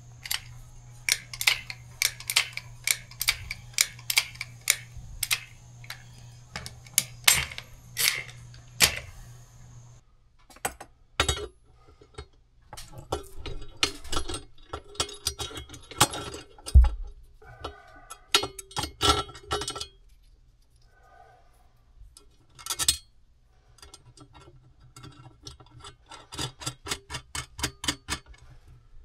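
Clicking, tapping and clatter of work noises, with a quick, even run of clicks near the end and a steady low hum behind that changes about ten seconds in.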